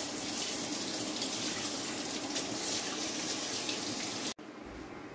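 Kitchen tap water running and splashing over a ribbon fish being rinsed by hand in a stainless steel sink, a steady rush that cuts off suddenly near the end.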